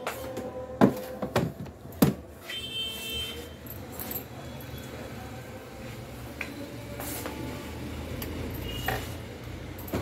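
Sharp knocks and rattles of a refrigerator's plastic drawers and stored items being handled, three loud ones in the first two seconds, then lighter clicks over a low steady hum.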